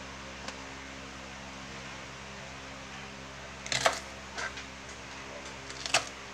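A kitchen knife cutting through bok choy stalks onto a plastic cutting board: a few sharp chops, the first about four seconds in and the loudest near the end. Under them runs a steady low hum.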